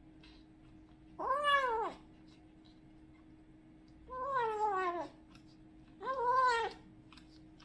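A young cat meowing three times, each call under a second long and rising then falling in pitch, with a faint steady hum underneath.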